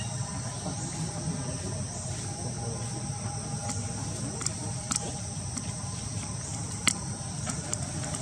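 Steady high chirring of insects, with a few sharp clicks scattered through it, the loudest about seven seconds in.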